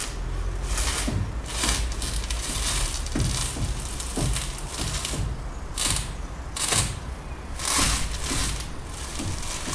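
Front wheel steered left and right at standstill, with a scraping creak and knock about once a second from the front strut top mount. The noise comes from a worn strut top bearing and a bump stop that has compressed until it touches.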